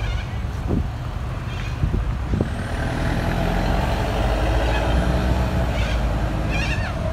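A large vehicle, such as a truck or bus, runs past with a deep, steady engine rumble that swells from about two and a half seconds in. A few harsh cockatoo screeches sound over it.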